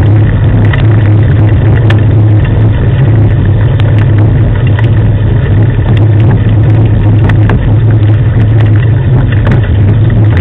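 Loud, steady rumble and hum of the dog-drawn training rig rolling on a paved road behind a running husky team, with scattered small clicks and rattles.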